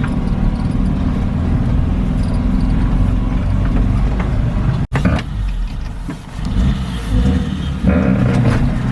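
Suzuki Samurai's engine running as the 4x4 works through deep snow, with a momentary break about five seconds in.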